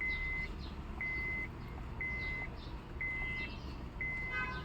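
Electronic beeper sounding a steady high beep about once a second, each beep about half a second long, over a faint low hum, with a short different tone near the end.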